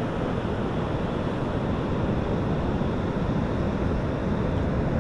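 Surf breaking on a sandy beach, a steady unbroken wash of noise, with wind buffeting the microphone and adding a low rumble.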